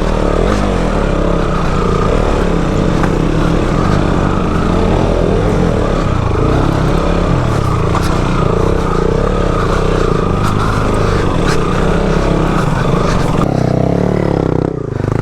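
Motorcycle engine running hard while riding up a rough dirt mountain track, its pitch wavering up and down with the throttle.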